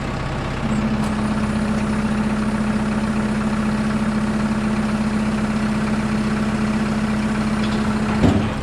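Tractor engine running while its hydraulics lower a New Idea 483 round baler's tailgate: a steady whine comes in under load about a second in and holds, then stops with a single clunk near the end as the tailgate closes.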